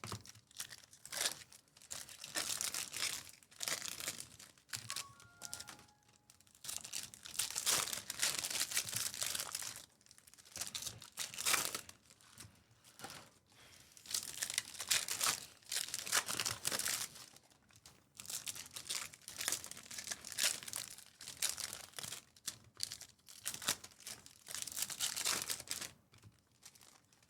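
Foil trading-card pack wrappers being torn open and crinkled by hand, in irregular rustling bursts. A brief three-note falling tone sounds about five seconds in.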